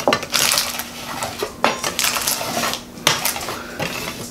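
A plastic smoothing tool scraping across a peel-and-stick vinyl backsplash tile in about four long rubbing strokes, pressing the tile onto the wall so the adhesive grips.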